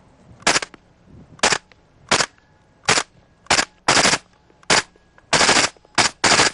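FN P90 with a Gemtech suppressor firing subsonic 5.7x28mm rounds: about ten quiet reports, mostly single shots a half-second to a second apart, with a couple of short bursts in the second half. The reports are dominated by the clatter of the bolt working.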